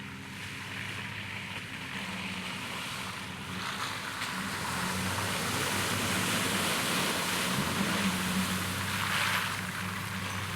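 A Nissan 4x4's engine running under throttle and growing louder as the truck drives through a mud puddle, with muddy water splashing and rushing around it, the splash swelling about nine seconds in.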